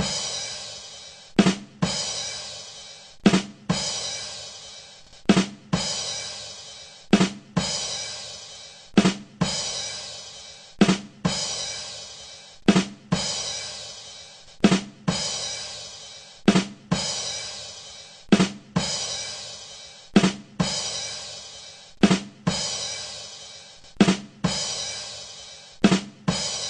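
The 'ba dum tss' rimshot sting on a drum kit, looped over and over: two quick drum hits, then a cymbal crash that rings out, about once every two seconds.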